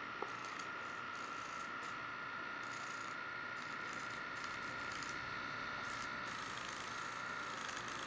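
Small battery-powered electric baby nail file running with a steady whine while its spinning head files a baby's fingernail. There is a single faint tick just after the start.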